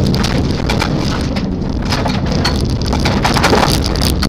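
Loose gravel rattling and pattering against the underside and wheel arches of a rally car driving fast on a gravel road, over steady engine and tyre rumble.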